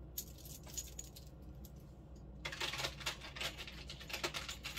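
A metal bead necklace on a link chain clinking and jangling as it is handled and put aside: a few scattered clinks at first, then a dense run of small metallic clinks from about halfway through.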